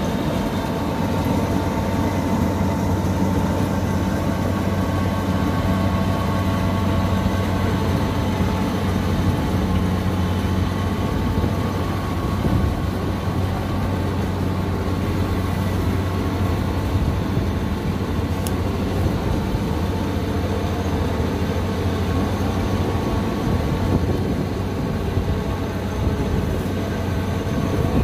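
Kubota DC-60 combine harvester's diesel engine running steadily under load while the machine cuts and threshes lodged rice: a constant low drone with the clatter of its machinery.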